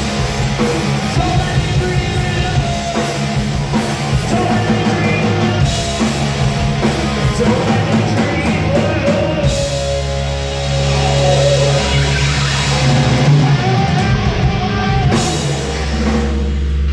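Live punk rock band playing loud: drum kit, distorted guitar and bass with a singing voice over them.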